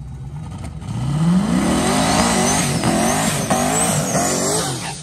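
Drag race car accelerating hard at full throttle. The engine note climbs about a second in, then dips and rises again several times as it pulls, with a high whine riding along. It cuts off suddenly near the end.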